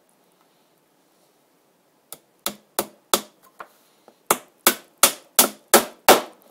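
Hammer driving 1¼-inch nails into the wooden side rails of a Langstroth beehive bottom board: about a dozen sharp blows, roughly three a second, starting about two seconds in with a few lighter taps and growing harder toward the end.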